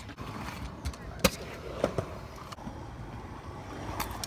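Stunt scooter wheels rolling over a skatepark surface, with a sharp clack about a second in and a lighter knock near two seconds as the scooter hits the ramp and gap.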